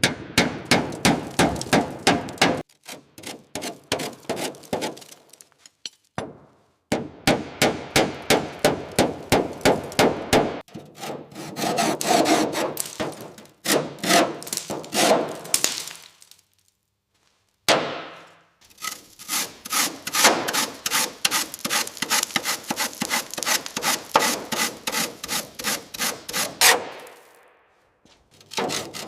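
Rhythmic scraping and rasping strokes of a hand tool working metal, about three strokes a second, in several short runs that start and stop abruptly, with occasional clanks.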